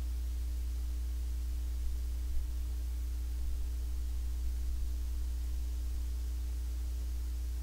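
Steady low hum with a faint thin tone and an even hiss, unchanging throughout, with a few faint ticks about two to five seconds in.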